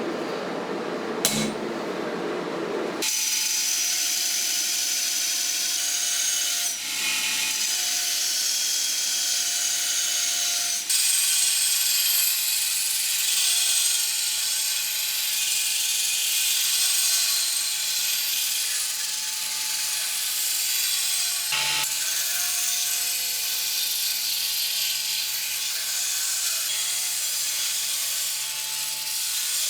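Power grinder abrading the steel of a machete blade made from a lawnmower blade: a loud, steady grinding hiss over a faint motor hum, breaking off briefly a few times as the work is lifted and set back. For the first few seconds a lower, different sound is heard instead, with a click about a second in.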